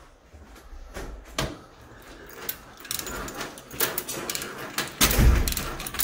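Manual chain block being hauled to pull heavy power cables into a switchboard: the chain rattles and clicks in quick runs, getting busier after about three seconds. About five seconds in there is a loud heavy clunk with a deep thud as the load shifts under tension.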